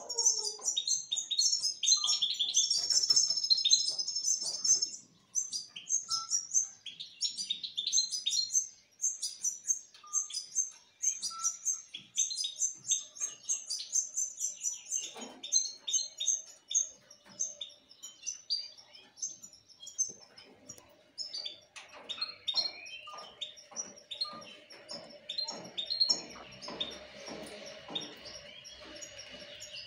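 Caged finches, among them European goldfinches, chirping and twittering in quick high notes, busiest in the first half and sparser later.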